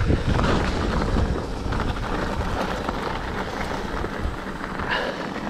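Mountain bike rolling downhill over a dirt trail and onto gravel: tyre noise and small rattles, with wind buffeting the microphone. The noise grows quieter toward the end.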